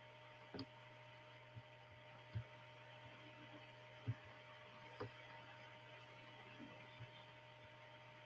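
Near silence: a steady low electrical hum with a few faint, irregular clicks and knocks, the loudest about two and four seconds in.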